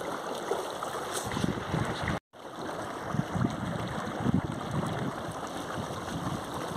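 Water rushing and slapping along the hull of an inflatable dinghy under way, with wind buffeting the microphone in irregular low thumps. The sound cuts out for an instant about two seconds in.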